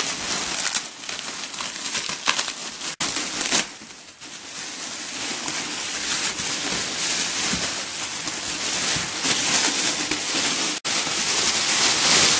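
Thin plastic carrier bags crinkling and rustling continuously as they are pulled and unwrapped by hand.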